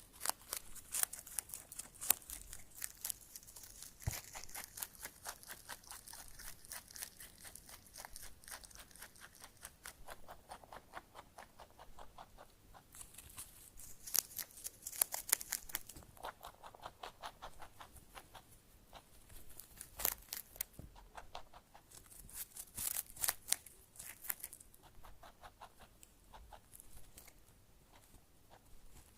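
A squirrel gnawing and crunching on food, a rapid crackly clicking that comes in bouts with short pauses between.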